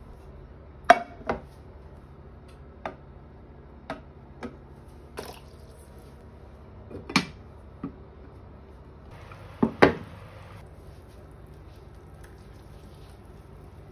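Kitchen cookware being handled: about nine separate sharp clinks and knocks of pans, lids and utensils, with a brief hiss in the middle of the loudest pair near ten seconds.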